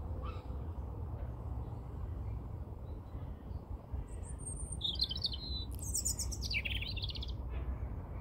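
European robin singing one short phrase of high, thin, fast-changing trills and whistles about four seconds in, with its last notes falling lower, over a steady low rumble.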